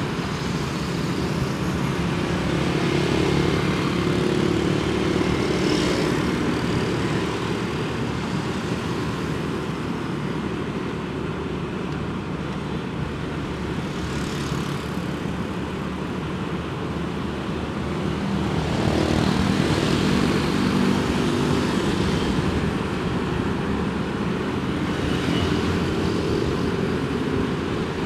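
Motorbike engine running steadily at road speed, with wind rushing past and the engines of nearby motorbikes; the sound swells slightly now and then.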